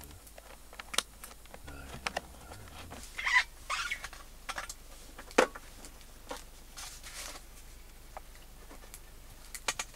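Scattered small clicks and knocks with a few short rustles, as of things being handled and moved about in a small space.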